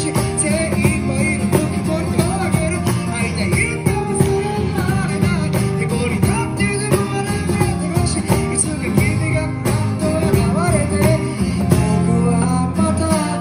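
Live acoustic band: a man sings through a microphone and PA over a strummed steel-string acoustic guitar and a cajon with a small attached cymbal.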